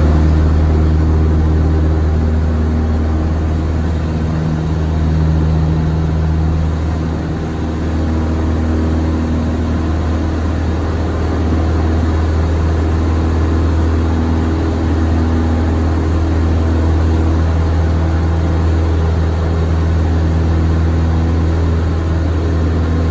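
Single-engine piston light aircraft's engine and propeller running at a steady power setting, heard from inside the cockpit as a constant deep drone.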